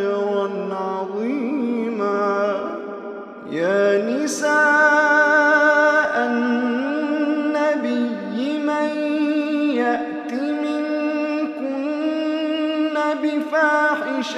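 Male reciter chanting the Quran in Arabic in the melodic tajweed style, with long held, ornamented notes. About three and a half seconds in he pauses briefly, then opens a new phrase with a rising glide.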